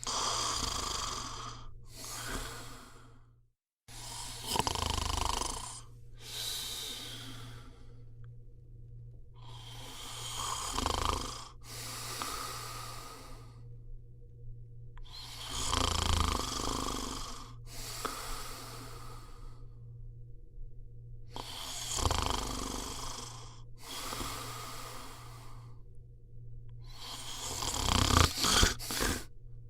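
A person snoring, with a slow rhythm of one breath every five to six seconds, each a snore followed by a breathy exhale. Near the end comes a louder cluster of several quick snorts. A faint steady hum runs underneath, and the sound cuts out briefly after about three and a half seconds.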